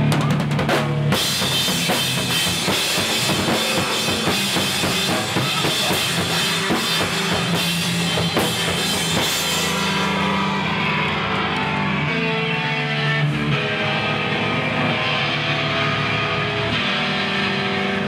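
Live emo/hardcore band playing: a drum kit pounding with crashing cymbals over loud electric guitar. About ten seconds in the cymbal crashes stop, leaving ringing, sustained guitar chords with lighter drumming.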